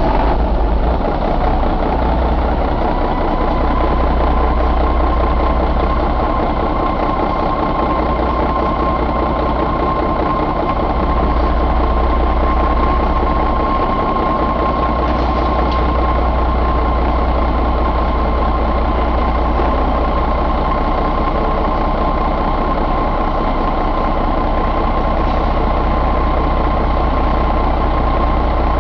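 Mercedes-Benz MBE4000 inline-six diesel engine idling steadily, with a high whine that rises in pitch over the first couple of seconds and then holds steady over the low engine rumble.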